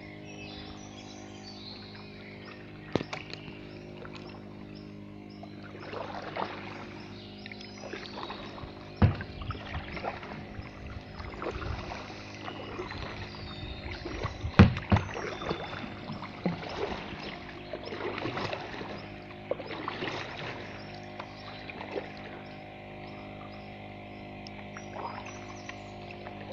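Kayak paddle strokes splashing and dripping in still floodwater, with a few sharp knocks, the loudest near the middle. A steady hum runs underneath.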